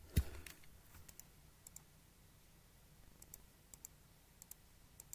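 A soft bump just after the start, then faint, irregular light clicks, a few every second or so, over quiet room tone.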